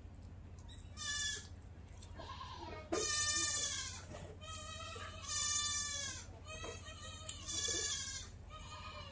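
An animal calling four times, each call drawn out for about half a second to a second and falling slightly in pitch, the loudest about three seconds in, over a steady low hum.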